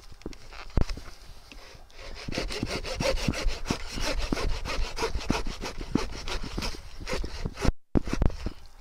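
Schrade shovel/saw combo's sharp dual-tooth saw blade cutting through a dead fallen log about 3 to 4 inches thick, in repeated back-and-forth strokes that get louder about two seconds in.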